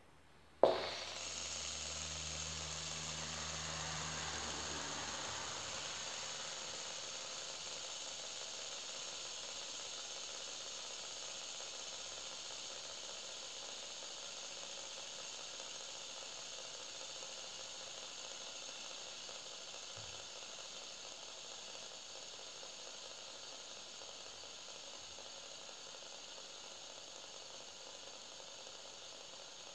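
A three-armed fidget spinner is flicked into motion with a sharp click about half a second in. It then spins freely on its bearing with a steady whir that slowly fades as it loses speed.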